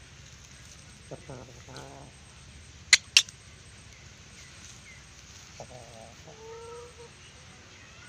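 Chicken clucking in short, pulsed calls about a second in and again past halfway, the second group ending in a longer held note. Two sharp, loud clicks in quick succession about three seconds in are the loudest sounds.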